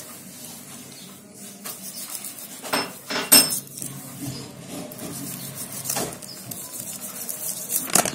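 Raw chicken pieces handled in a steel bowl, with a few sharp clinks and knocks against the metal bowl; the loudest comes about a third of the way in.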